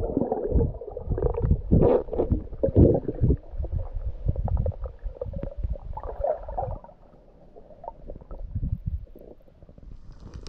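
Muffled underwater sound from a submerged camera: irregular gurgling and low thumps of water moving against it, fainter for the last few seconds.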